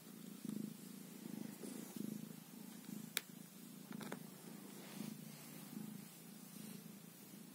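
A tabby cat purring while being stroked, the low purr swelling and fading in short pulses. A single sharp click about three seconds in, with fainter ticks a second later.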